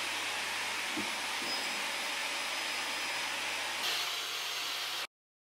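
Canister vacuum cleaner running steadily as its wand is pushed over the floor. Near the end the sound turns hissier, then cuts off suddenly.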